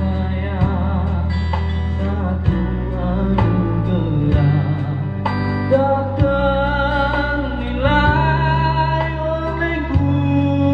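A man singing into a microphone over amplified music with guitar and a steady bass line; his voice comes in more strongly about halfway through.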